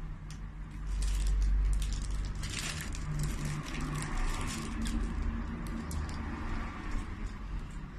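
A crinkly plastic packet shaken and squeezed in the hand, crackling and rattling in quick irregular clicks, with a low rumble underneath that is loudest about a second in.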